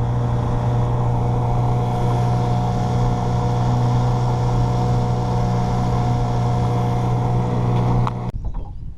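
Small outboard motor on a jon boat running steadily at a no-wake cruising speed, with an even hum; the owner says it is running good. The engine sound cuts off abruptly about eight seconds in.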